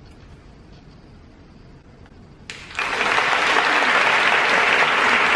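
Audience applause breaking out suddenly about halfway through, after a couple of seconds of quiet hall at the end of a choral piece, then carrying on steady and loud.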